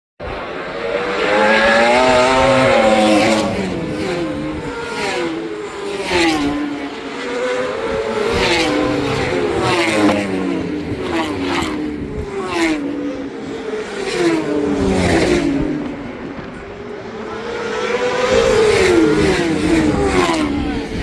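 Racing motorcycles at full throttle passing one after another. Each engine note climbs, breaks briefly at each gear shift, then drops in pitch as the bike goes by.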